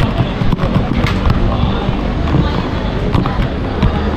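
Busy street ambience: a steady low traffic rumble with background voices, and frequent short knocks and clicks from footsteps on tiled stairs and camera handling.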